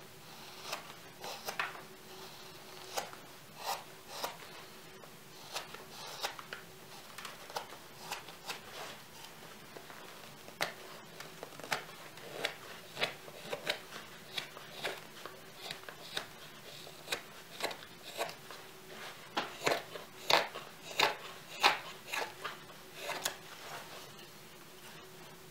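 A Yakut knife slicing shavings from a green birch cup handle: short, crisp cuts at an irregular pace, a few every second or two, with a denser, louder run of cuts near the end.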